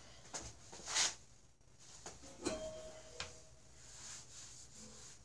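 A few scattered knocks and clicks of metal tools and parts being handled, the loudest a sharp noisy hit about a second in; a knock about two and a half seconds in leaves a short metallic ring.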